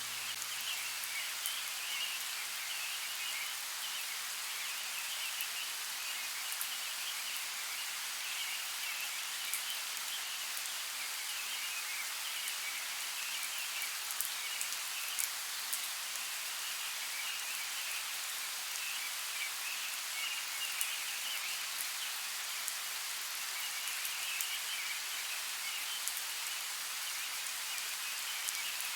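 Steady rain falling on forest foliage, with scattered individual drops ticking close by, over a constant high chirring chorus.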